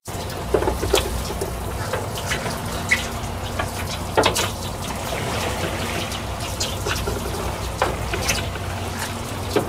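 Seawater splashing and running along the side of a fishing boat, a steady wash broken by scattered light knocks and clicks.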